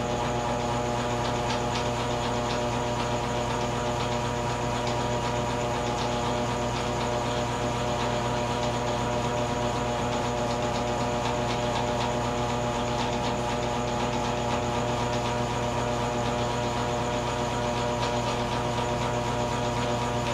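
A steady mechanical drone: a constant hum of several held tones over an even hiss, with no change in level or pitch.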